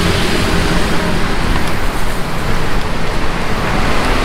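Steady road traffic noise: motor vehicles running, with a continuous rush.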